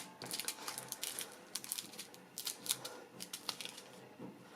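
Small plastic bags of diamond painting drills being handled and sorted, giving faint, irregular light clicks and crinkles.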